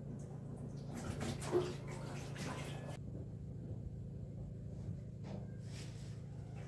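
Water running and splashing at a kitchen sink, as at the washing-up, for about three seconds, then cut off suddenly. After that, a quieter room with a steady low hum and a few faint short sounds.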